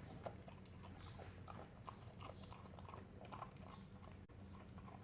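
Vizsla puppy chewing, a faint irregular run of small clicks, over a low steady hum.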